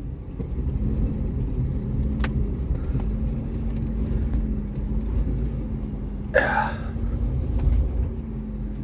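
Vehicle engine idling steadily with a low hum. There is a sharp click about two seconds in, and a short scraping or rustling noise about six and a half seconds in.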